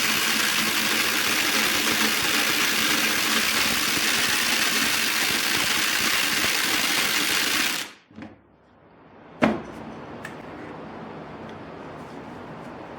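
Two cordless brushless impact drivers, a Ryobi 18 V and a Kobalt 24 V, running together at top speed with a steady rapid rattle of impacts, both overheating and smoking under a long continuous load. They stop abruptly about eight seconds in, followed by a single click and a faint steady hum.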